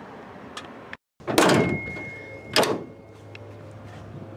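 Two loud metal impacts on the steel hood of a first-gen Dodge W250 pickup, about a second and a half apart, the first leaving a high ringing tone for about two seconds.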